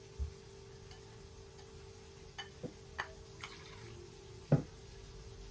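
Small wire whisk stirring thick tahini sauce in a ceramic bowl: a few light, uneven ticks of the wires against the bowl, then a louder knock about four and a half seconds in.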